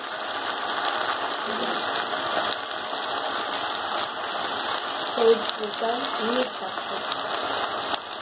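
Chopped colocasia leaves with boiled peanuts and black peas sizzling in hot coconut oil in an iron kadhai, a steady frying hiss.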